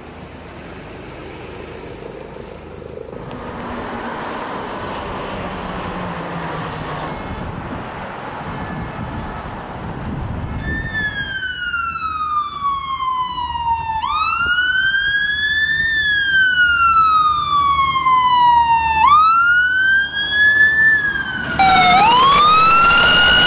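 Vehicle and road noise, then from about halfway an emergency vehicle's siren wailing, sliding slowly down and back up every few seconds. Near the end another siren comes in with a rising wail.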